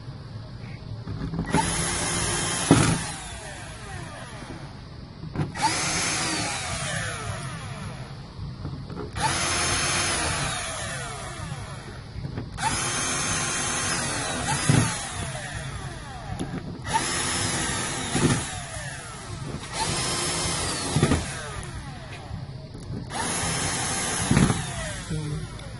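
Power screwdriver driving seven screws back into a TV's replacement power supply board, in seven separate runs of a few seconds each, the motor's whine sliding in pitch as it turns. Several runs end in a sharp snap as the screw seats.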